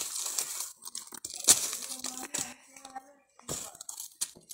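Dry coconut husks being handled and set down on the ground as a ground cover, crunching and rustling in several irregular bursts.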